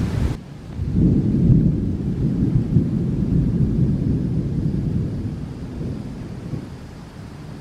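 Deep, gusting rumble of an approaching thunderstorm. It dips briefly just after the start, then swells and slowly eases off toward the end.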